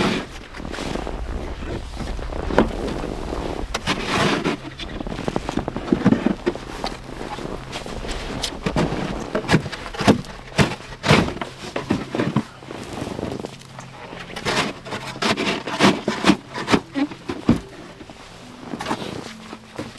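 Irregular scrapes and thuds of snow being cleared from a dugout doorway so that the door will close.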